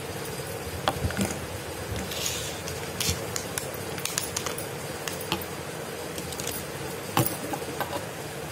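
Clear plastic wrapping crinkling, with small clicks and taps, as a small foil-covered object is handled and unwrapped on a wooden tabletop. A steady hum runs underneath.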